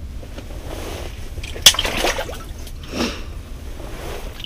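Northern pike released back down an ice-fishing hole: a sharp slap about a second and a half in, then splashing and sloshing water in the hole, over a steady low rumble.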